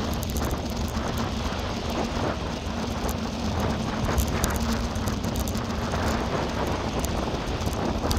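Wind buffeting the microphone of a camera on a moving bicycle, over a steady low rumble from the ride, with frequent small clicks and rattles from the bike.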